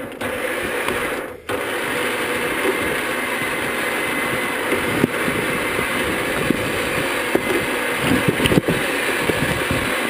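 Winch on a Land Rover Defender pulling in its line under load: a steady motor drone over the running engine, with occasional knocks of stones.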